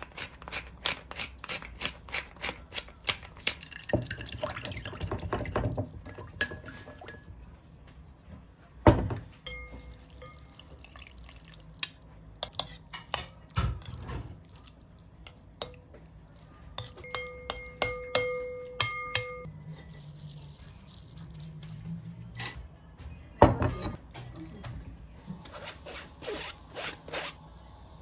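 Kitchen prep noises: a wooden pepper mill ground in a quick run of clicks, then a metal fork clinking and scraping against a ceramic bowl while chopped raw salmon is mixed, with the bowl ringing briefly under some strikes.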